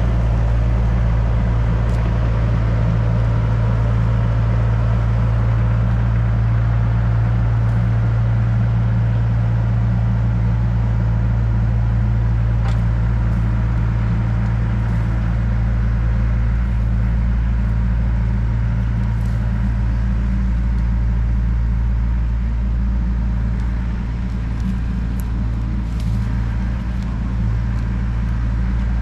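John Deere 60G mini excavator's diesel engine running steadily under the operator, a constant low hum, with a few faint clicks from the machine.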